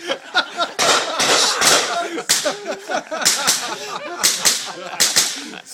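Onlookers stifling laughter: short, breathy, hissing bursts of suppressed laughing mixed with low murmurs, recurring every second or so.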